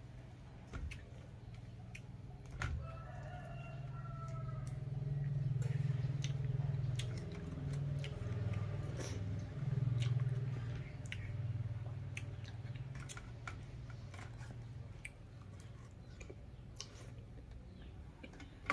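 A rooster crows once, about three seconds in, over small clicks and taps of a metal spoon working a balut egg in its shell and chewing. A low rumble swells through the middle and fades.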